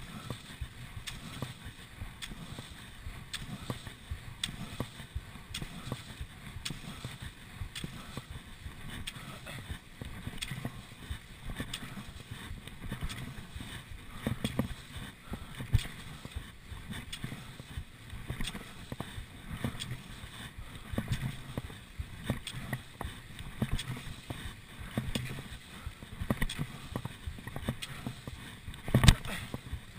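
Cross-country skis sliding in set classic tracks, with repeated knocks and clicks from the skis and ski poles and one sharper knock near the end.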